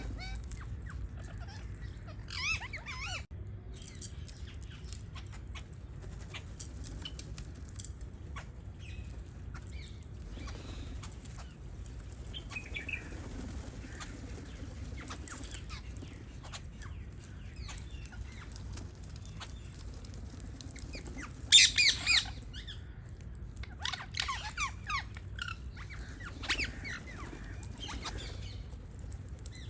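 Pet parrots giving short chirps and squawks with long gaps between them. The loudest burst of squawks comes a little past the middle and is followed by several quicker calls, with faint scattered clicks and a low steady hum underneath.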